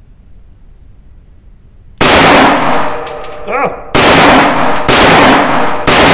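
Four rifle shots from an HS Produkt VHS-2 bullpup in .223 Remington. The first comes about two seconds in and the other three follow about a second apart, each ringing on in the small indoor range.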